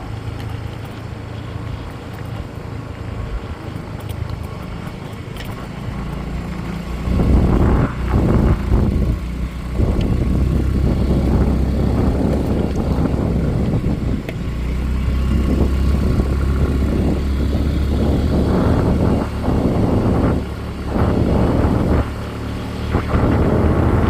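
Motorcycle running under way with road noise, a steady low rumble that grows louder about seven seconds in and dips briefly a few times near the end.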